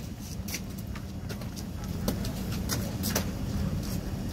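Steady low hum and rumble of a large indoor show arena, with about six sharp clicks scattered irregularly through it.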